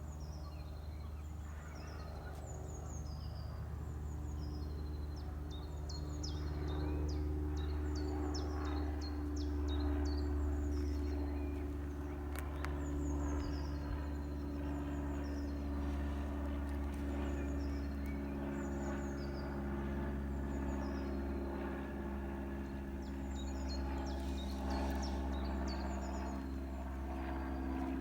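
Small birds chirping again and again in short high calls over a steady low mechanical hum with a few held tones.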